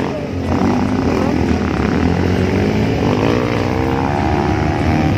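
Small motorcycle engine running under way on a dirt track, a steady drone whose pitch rises about three seconds in as it speeds up.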